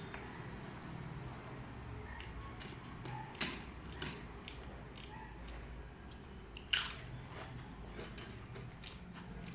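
Close-up eating sounds: chewing with small wet mouth clicks, and two louder sharp crunches about three and a half and nearly seven seconds in.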